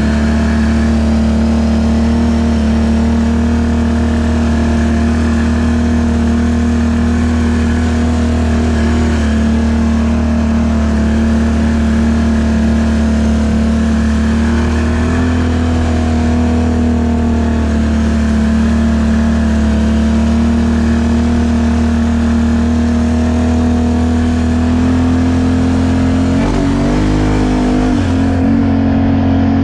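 ATV engine running at a steady cruising speed under way, its pitch holding level; the revs shift briefly near the end and settle slightly higher.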